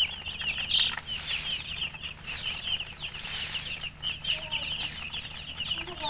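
A crowd of domestic chicken chicks peeping continuously, many short high-pitched chirps overlapping one another.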